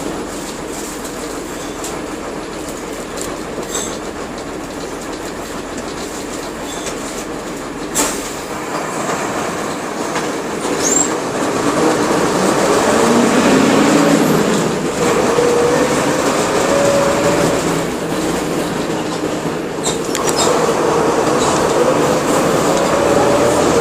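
Mercedes-Benz OF-1721 bus with its OM-366LA diesel engine, heard on the move over a steady rumble of running noise and a few sharp rattling knocks. The noise grows louder partway through, and a whine rises in pitch twice as the bus gathers speed.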